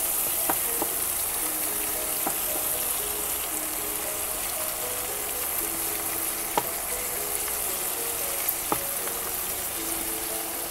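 Shrimp, garlic and onion sizzling steadily in hot olive oil in a frying pan, with a few sharp clicks of a wooden spatula against the pan as they are stirred.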